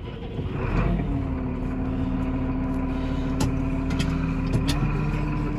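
Massey Ferguson tractor's diesel engine starting up and settling into a steady idle, its speed stepping up slightly near the end, with a few light clicks.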